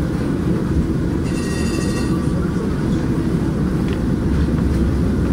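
PCC streetcar running along its track, heard from inside the car as a steady low rumble. A brief high-pitched squeal comes about a second in.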